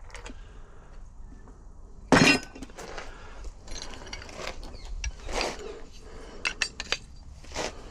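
Metal parts of a UPVC door lock gearbox clinking and knocking as they are handled, with one loud clatter about two seconds in and a quick run of sharp clicks near the end.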